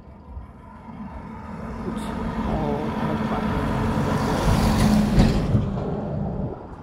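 A road vehicle passes on the highway: engine and tyre noise builds over about four seconds, is loudest about five seconds in, then fades away.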